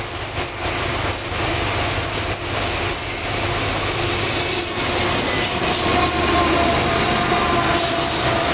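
GE C40-8W diesel-electric locomotives, with V16 diesel engines, pass close by at speed, followed by covered hopper cars, with a steady heavy rumble of wheels on rail. The sound grows a little louder about halfway through, and a faint high wheel squeal comes in then.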